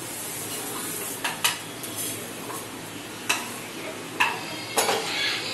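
Spatula scraping fried spice paste out of a small pan into thick masala gravy and stirring it, with a light sizzle from the pan and a few sharp taps of the spatula against the pan rims.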